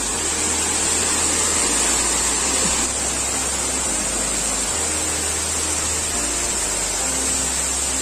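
Waterfall rushing steadily: an even roar of falling water with a strong hiss. Low background-music notes change every second or two underneath.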